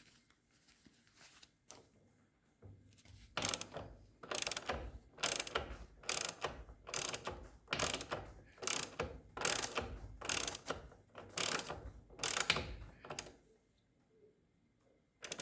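A ratchet wrench worked in about a dozen even strokes, rasping on each one, turning the M10 bolt of a bushing puller to draw a worn engine-mount bushing out of a GY6 scooter engine. The strokes start about three seconds in and stop near the end.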